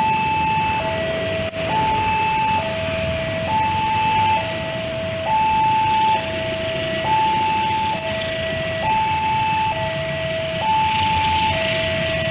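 Railway level-crossing alarm giving its two-tone electronic warning, a higher and a lower note alternating about every second, which signals that a train is coming and the crossing is closed. A steady low rumble runs underneath.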